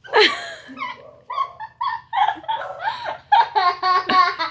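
People laughing in short repeated bursts, mixed with a few words.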